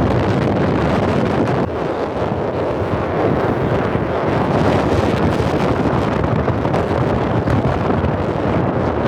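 Strong wind buffeting the microphone: a loud, steady rush of noise.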